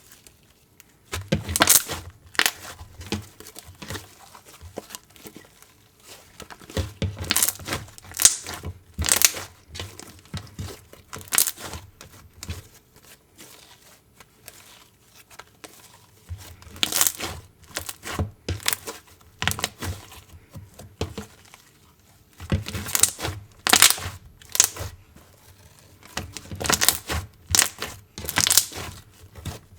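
Slime being squished, pressed and stretched by hand, giving irregular runs of sharp pops and crinkly clicks with short quiet gaps between them.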